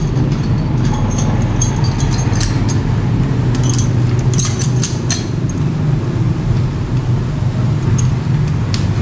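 Small metal hand tools clinking as they are handled and put back into a motorcycle toolkit: scattered light clicks, most in the first half. Under them a steady low hum from a motor runs throughout.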